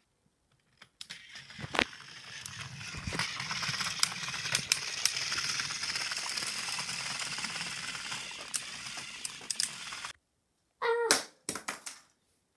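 Battery-powered toy train engines (Thomas and Percy) running along the track: a steady motor-and-gear whirr with rattling clicks, which stops suddenly about ten seconds in. A child's short 'ah' follows.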